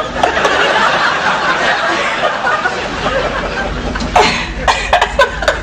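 Laughter: a dense stretch of choppy laughing, with a low rumble coming in about three seconds in.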